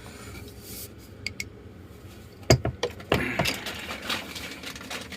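Handling noises: faint clicks, a sharp knock about two and a half seconds in followed by a few more clicks, then a short rustle.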